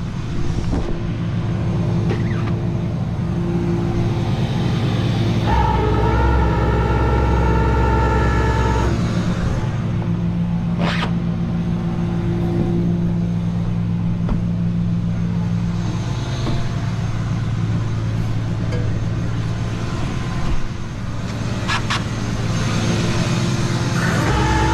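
A vehicle engine running steadily, with a louder, higher-pitched stretch about six to nine seconds in and again near the end.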